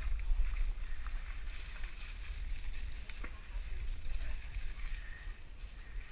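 Wind rumbling on the microphone of a mountain bike on the move along a trail, with a few light clicks and rattles from the bike.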